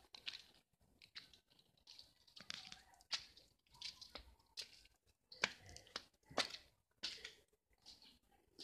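Footsteps on wet concrete and grit: faint, irregular scuffing steps roughly one every half-second to second, the loudest a little past the middle.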